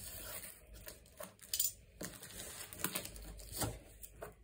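Scattered light clicks and taps from hands handling and picking at a cardboard shipping box to get it open.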